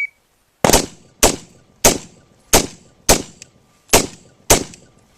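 AR-15 carbine firing a timed string of single aimed shots, seven in quick, fairly even succession, about one every two-thirds of a second. At the very start the tail of the shot timer's start beep is heard.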